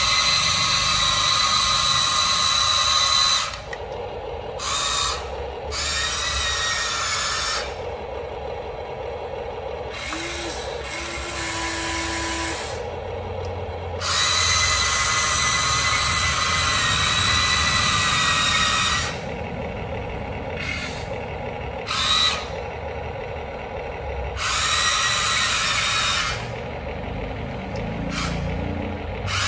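Electric drive motors of a Huina RC tracked excavator whining in repeated start-stop runs, from a fraction of a second to about five seconds each, as it drives and climbs onto an RC flatbed trailer. A steadier low hum runs underneath.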